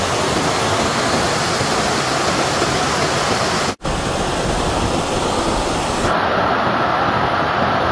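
A steady, loud rushing noise with no clear pitch, broken by a split-second dropout just under four seconds in.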